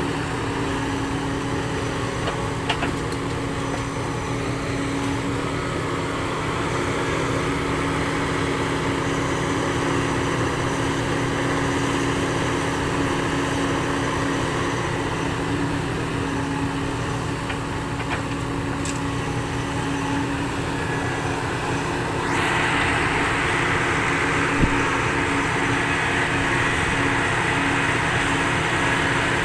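A vehicle engine running steadily with an even hum. About 22 seconds in, a louder hiss joins it and holds.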